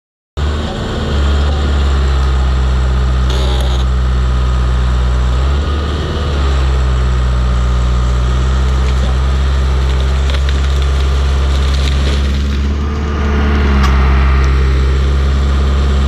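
Caterpillar D4C crawler bulldozer's four-cylinder diesel engine running hard under load while the blade pushes against a tree and its root ball. It is a steady low engine note that dips briefly about six seconds in and grows a little louder near the end.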